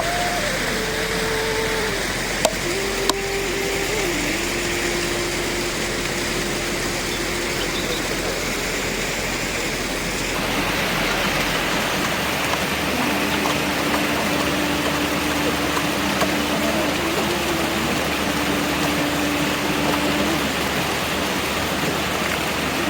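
Steady rushing water, like a stream or waterfall, with a faint held melody on top that steps between a few pitches, each note lasting a second or more. Two short clicks come around two and a half and three seconds in.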